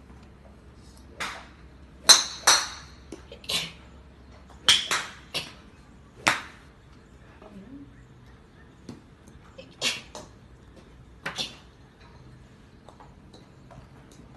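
A young woman sneezing in a quick run of about a dozen small, sharp sneezes, several coming in fast pairs, with a pause in the middle before the last few.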